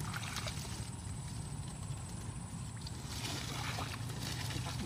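Rustling and light clicks of movement through tall swamp grass over a steady low rumble, the rustling busier about three seconds in.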